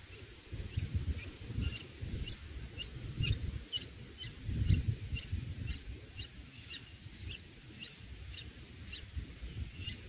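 Red-whiskered bulbul nestlings begging for food: a quick series of short, thin, high chirps, about two or three a second, over an irregular low rumble.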